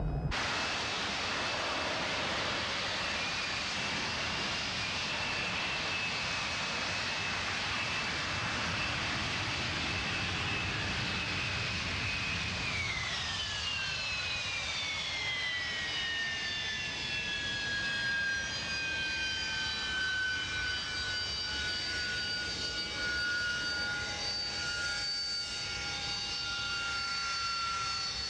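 Harrier jet's Pegasus turbofan running with a steady high whine over a roar of jet noise. About halfway through, the whine drops in pitch and settles at a lower note.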